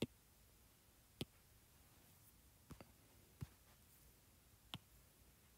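Near silence broken by a handful of faint, irregular taps on a tablet's glass screen as the app's interface is worked.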